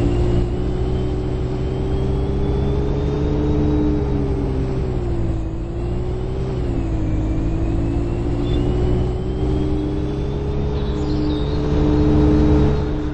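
Bus driving on the road, heard from inside the passenger cabin: a steady low rumble with a motor whine that rises in pitch, dips briefly in the middle, and rises again as the bus speeds up, slows and pulls away again.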